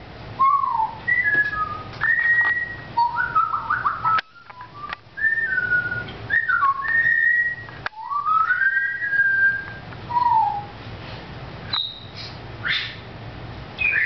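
African grey parrot whistling a long run of short sliding notes that rise and fall in pitch, broken by a few sharp clicks, with a couple of higher chirps near the end.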